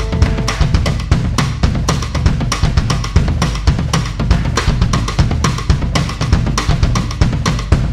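Band music with no singing: a busy drum-kit groove of bass drum, snare and cymbals over a heavy bass line. A few held notes cut off about half a second in.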